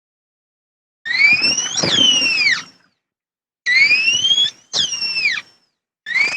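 Movie velociraptor shrieks built from stock sound effects: high, screechy calls that glide up then down in pitch. One long call about a second in is followed by two shorter falling shrieks, and a fourth begins near the end.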